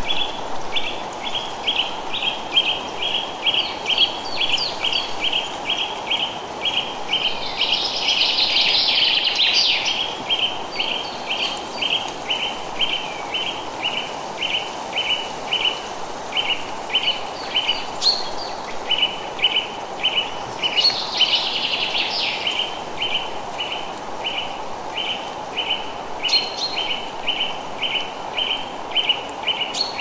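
Forest ambience: a steady rush of wind through the trees under a high chirp repeated about twice a second, with brief bursts of bird chatter about eight seconds in and again a little past twenty seconds.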